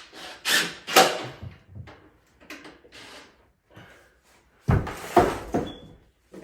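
Door hardware being worked on while the strike plate is adjusted so the latch will catch: a couple of sharp knocks in the first second, then small clicks. About five seconds in there is a cluster of heavy thumps as the door is moved against its frame.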